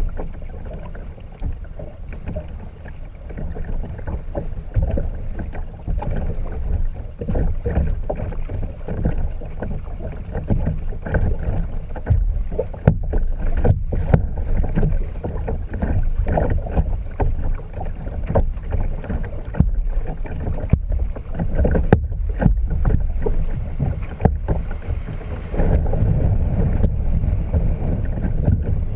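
Kayak paddling: water splashing and sloshing against the hull, with scattered sharp knocks and a steady low rumble of wind on the microphone.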